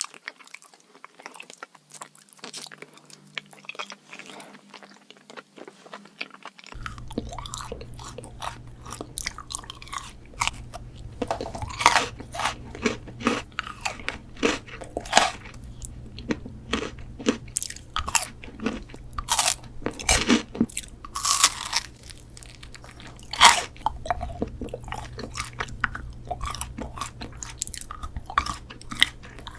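Close-miked eating: crisp, crunchy bites and chewing of sweets, with many sharp crackles. About seven seconds in the sound gets louder over a steady low hum, with the crunches closer and stronger.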